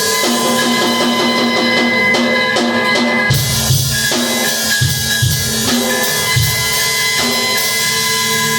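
Electric guitar and drum kit playing live together: held, ringing guitar notes over snare and cymbals, with the bass drum coming in on a steady beat about three seconds in.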